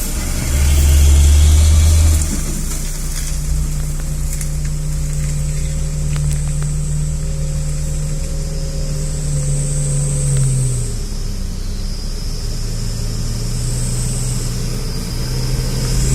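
Logging truck engine running under load, its tone holding steady and then falling in pitch about eleven seconds in. A loud low rumble sits beneath it in the first two seconds.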